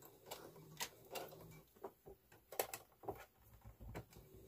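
Light, scattered clicks and small taps as quilted fabric binding is handled and set under a sewing machine's presser foot.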